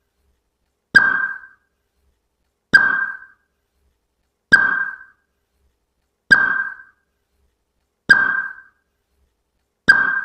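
A repeating electronic ping, six times at an even pace of about one every 1.8 seconds, each with a sharp start, a single ringing tone and a quick fade.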